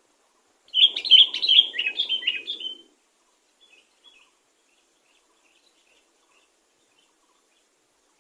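Sooty-headed bulbul (kutilang) singing a quick phrase of about eight loud, clear whistled notes, followed by a few faint notes.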